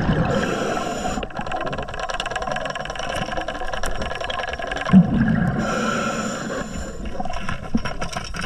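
Underwater sound of a diver breathing on scuba: a hiss from the regulator on each inhale, about a second long, and a low bubbling gush on the exhale, the cycle repeating about every 4–5 seconds over a constant fine crackle.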